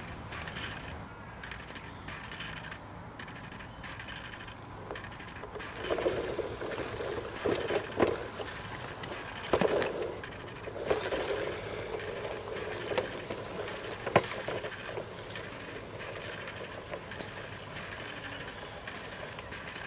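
A G scale model electric railcar and wagon running on garden railway track, their wheels rumbling along the rails with sharp clicks. The sound is loudest for several seconds in the middle as they pass close by, then falls back to a steady low level as they move away.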